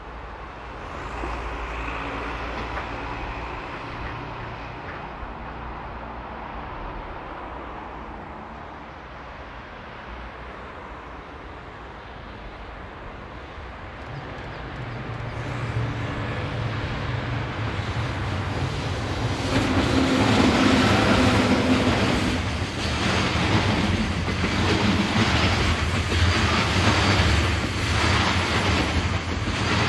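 JR Freight EF66 electric locomotive hauling a container freight train, approaching and then passing close by. It grows louder from about halfway through. The container flat wagons then roll past with a rhythmic clatter of wheels on the rails.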